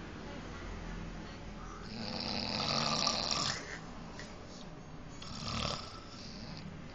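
A person snoring, a snore likened to a lion's roar. There is a long, loud snore starting about two seconds in and lasting about a second and a half, then a shorter, weaker one a little past the five-second mark.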